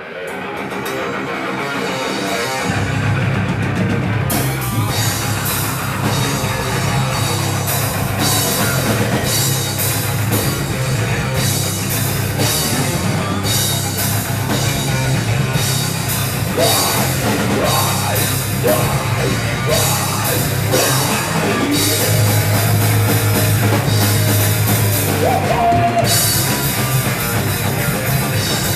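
Heavy rock band playing live: distorted guitar, bass and drum kit. It starts thinly, the bass and drums come in about three seconds in, and cymbals join about a second later, staying loud from there on.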